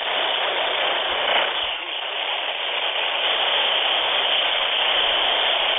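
Steady hiss of static from a handheld NOAA weather radio receiver, with no clear voice coming through.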